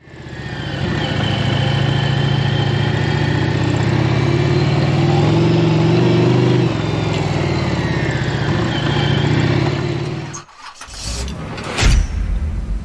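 Motorcycle V-twin engine running loud and steady while riding, its pitch shifting about two-thirds of the way through, then cutting off about ten seconds in. A short whoosh and a heavy low hit follow near the end.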